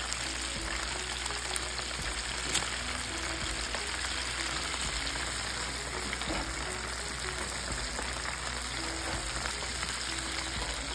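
Battered chicken pieces deep-frying in a pan of hot oil: a steady, bubbling sizzle.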